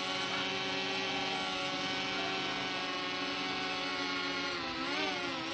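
Cfly Faith 2 quadcopter's brushless motors and propellers whining steadily in flight, the pitch dipping and rising again near the end.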